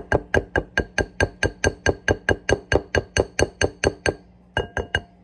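A utensil knocking against a glass mixing bowl while thick pudding is stirred, about five clinks a second, each with a short glassy ring. The strokes stop about four seconds in, then a few more come near the end.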